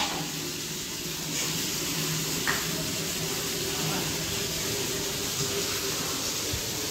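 DYLECT Ultra Flow Plus 1900 W electric high-pressure washer running, a steady hiss of spray over a faint, even motor hum.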